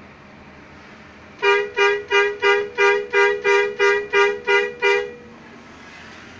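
Vehicle horn sounded in a rapid string of about ten short toots, roughly three a second, over the steady running of the vehicle.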